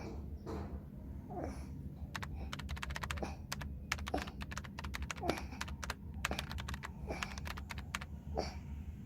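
Rapid, irregular clicking of typing on a computer keyboard, densest through the middle, over a steady low hum, with a few short vocal sounds.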